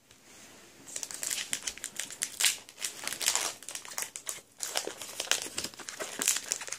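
Plastic-foil booster pack wrapper crinkling as it is handled and worked open, a dense irregular crackle starting about a second in.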